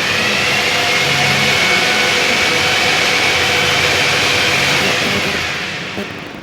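RO water purifier's booster pump running: a steady hum with a high whine, easing off near the end.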